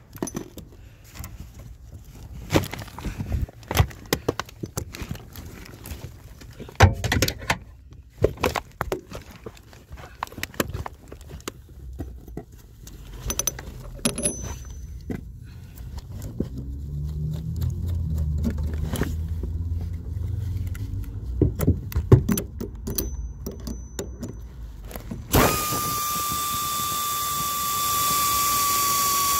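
Clatter and knocks of tools and objects being handled in a car's trunk. About 25 seconds in, a power tool starts a steady high motor whine as it turns the nut on the rear shock absorber's top mount.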